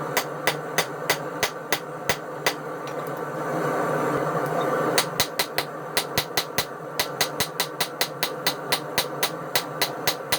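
Hand hammer striking a hot railroad spike on an anvil at about three blows a second, rounding out the spike's square shank. The blows stop for a couple of seconds partway through, then resume, over a steady background hum.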